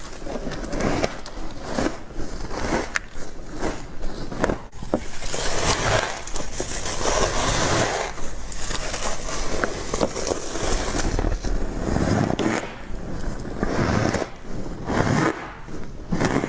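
Frost being bitten and chewed, a dense run of crunching and scraping crackles with occasional sharp cracks, played back in slow motion.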